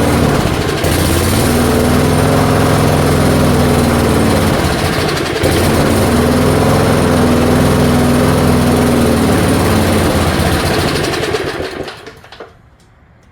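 1978 Allis Chalmers 19-inch push mower's small engine running, its speed sagging and picking back up twice, then stopping about twelve seconds in. The owner suspects a bad carburetor diaphragm keeping it from picking up.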